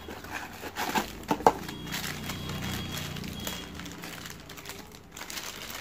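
Crinkling and rustling of a thin plastic packing bag and a small cardboard box being opened and handled by hand, with scattered light crackles.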